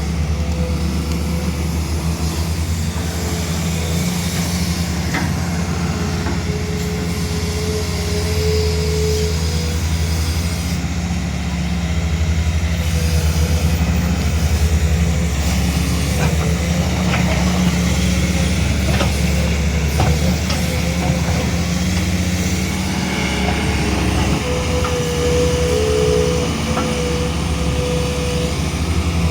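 Diesel engine of a 21-tonne class hydraulic excavator running steadily, with a higher whine that comes and goes twice.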